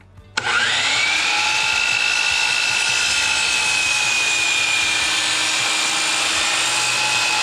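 Circular saw motor switching on about half a second in, winding up to a steady high whine and running steadily while it cuts a notch into a 4x6 wooden post.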